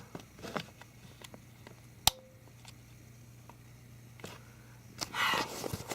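Small clicks and handling noise from plugging in and fiddling with a power strip and light, with one sharp click about two seconds in and a short rustle near the end, over a faint steady low hum.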